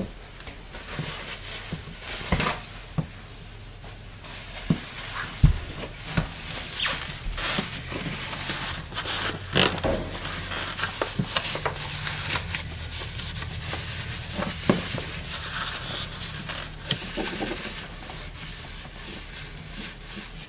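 Hands working in the base of a Samsung dishwasher, mopping up the water left in the sump: rubbing with scattered light knocks and clicks.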